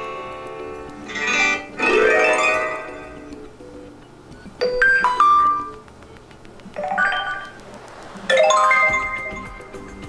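Xiaomi Redmi Note 9S ringtone previews playing from the phone's loudspeaker: about five short chimes and melodies, each starting suddenly and fading or cut off as the next tone in the list is tapped. Faint background music runs underneath.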